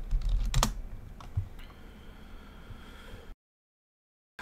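Computer keyboard typing: a few scattered keystrokes in the first second and a half. The sound then drops out to complete silence for about the last second.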